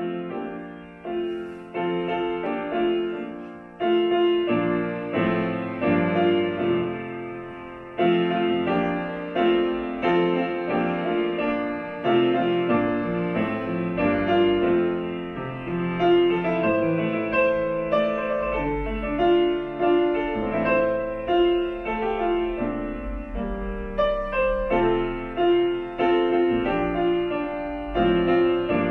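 Grand piano played solo: a steady flow of struck chords and melody notes, each note dying away after it is struck.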